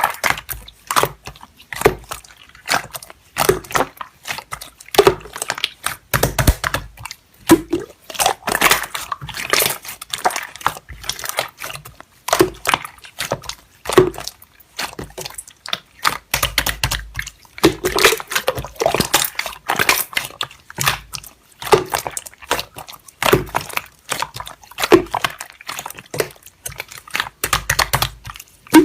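Slime being squished and poked by hand, giving a quick, irregular string of sticky clicks and wet pops.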